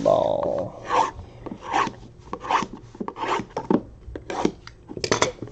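Trading-card boxes and their wrapping being handled: a series of short rasping scrapes and rubs of cardboard and plastic, about one a second.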